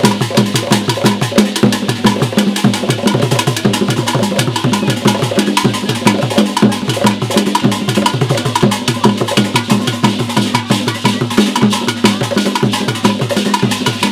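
Traditional Ghanaian drum ensemble played by hand on wooden barrel drums, a fast, steady, unbroken rhythm of sharp strokes.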